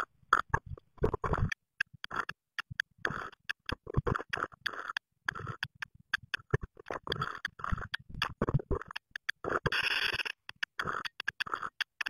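A blue tit scratching and rustling in the moss of its nest inside a wooden nest box, heard as many short, irregular bursts of scratching and bumping that start and stop abruptly.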